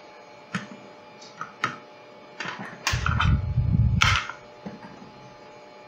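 Hands handling network cables, plugs and small plastic devices on a table: a few sharp clicks and knocks, then a stretch of rubbing and clatter about three seconds in, opening and ending with a sharp click.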